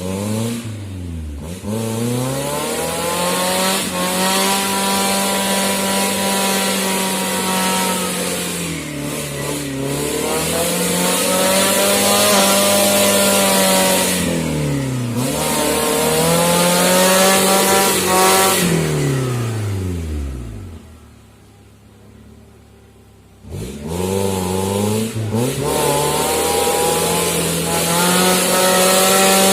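Suzuki Jimny 4x4 engine revving up and easing off over and over, its pitch swelling and falling several times. About two-thirds of the way through it sinks away and goes quiet for a couple of seconds, then comes back suddenly and revs again.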